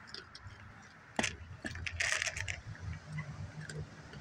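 A raccoon eating dry cat kibble off a concrete floor: scattered small clicks and crunches of the kibble, with a louder click a little over a second in and a brief rattling rustle about two seconds in.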